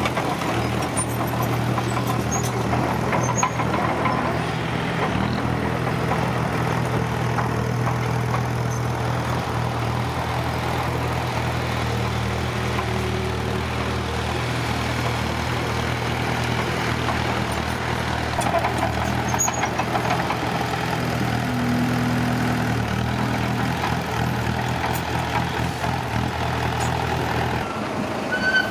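Heavy construction-machine diesel engine running steadily at an even, low pitch.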